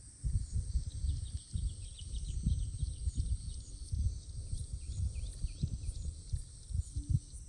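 Small birds chirping, short chirps repeated over and over, over a steady high-pitched drone. Irregular low rumbling, louder than the birds, runs underneath throughout.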